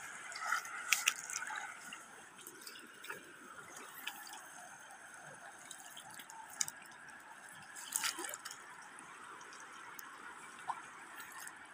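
Feet wading through shallow floodwater, sloshing and splashing faintly, with a few sharper splashes about a second in and again around eight seconds in.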